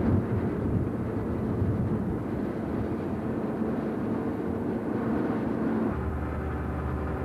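Heavy diesel engine of a wheel loader running steadily beside a parked bomber. The tone changes about six seconds in.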